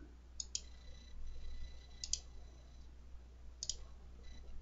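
Computer mouse button clicking: three quick pairs of clicks, spaced about a second and a half apart, over a faint steady low hum.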